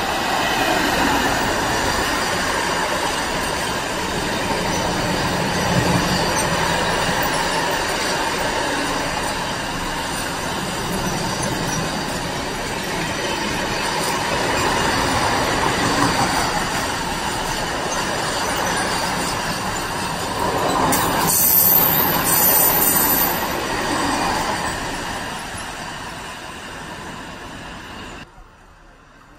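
Freight train of covered sliding-wall wagons rolling past, a steady rumble and clatter of wheels on rail, with a brief high wheel squeal about two-thirds of the way through. The sound fades as the train pulls away, then cuts off suddenly near the end.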